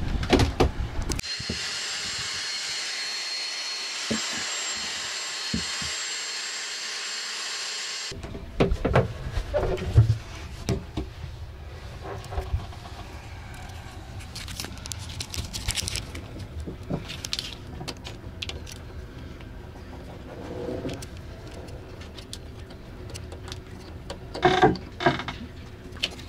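Vacuum cleaner running steadily with a high whine for about seven seconds, then cutting off abruptly. After that come scattered clicks, knocks and rustles of hands handling cables and fittings.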